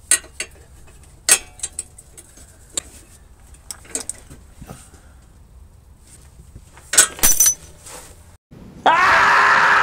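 Light metallic clinks and knocks of tools and hardware being handled, with a cluster of louder knocks about seven seconds in. Near the end a loud, steady, pitched whir starts suddenly.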